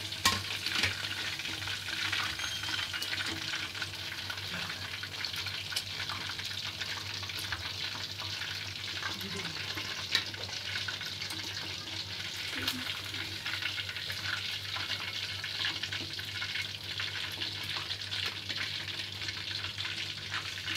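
Chicken pieces deep-frying in hot oil in a pan: a steady sizzle full of fine crackles, with a faint low hum underneath and one sharp click about ten seconds in.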